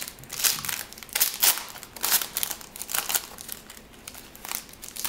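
Trading-card pack wrapper crinkling in a series of irregular crackles as it is handled and worked open.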